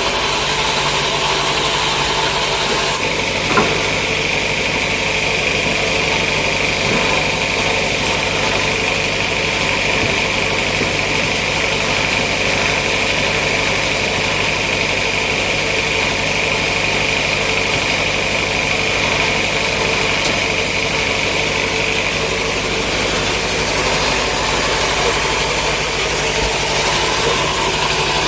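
Sawmill machinery running steadily. A steady high whine comes in about three seconds in, with a single knock just after, and drops away several seconds before the end.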